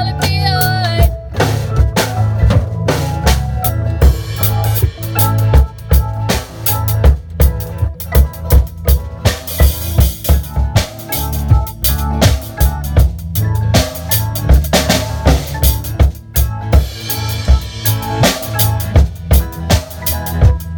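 A live student band plays an instrumental stretch of a pop/reggae cover, led by a drum kit with a steady beat over a strong bass line. A held, wavering note ends about a second in.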